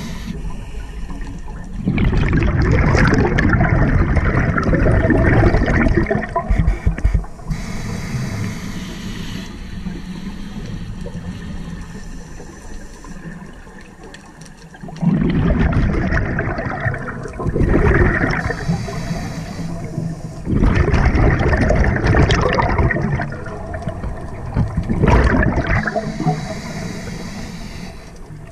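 Scuba diver breathing through a regulator underwater: exhaled bubbles gurgle out in loud surges lasting one to several seconds, five times, with quieter stretches of steady hiss between breaths.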